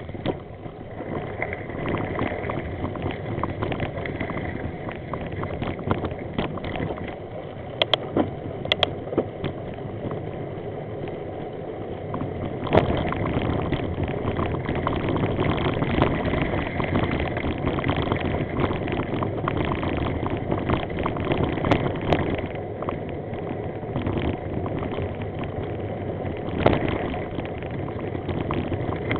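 Road rumble and rattle from a camera riding on a bicycle over rough gravel and patched concrete, a steady dense noise with a few sharp knocks, two close together about eight seconds in.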